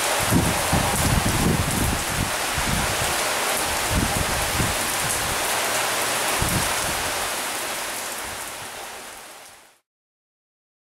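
Steady heavy rain falling, with irregular low rumbling gusts under it. It fades out over the last few seconds and cuts to silence near the end.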